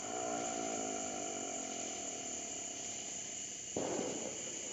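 Steady high-pitched insect trilling, with a faint buzzy hum that sinks slightly in pitch and then gives way abruptly to a short rush of noise near the end.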